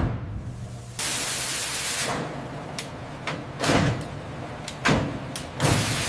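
Machinery sounds: a thump, then an even hiss lasting about a second, followed by a series of separate clanks and knocks, the loudest near the middle and at the end.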